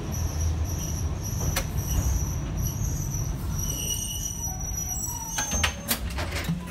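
Hankai Tramway streetcar running along the track, heard from inside the cab: a steady low rumble of motor and wheels with a high, intermittent wheel squeal on the rails. A short burst of clicks and knocks comes a little after five seconds in.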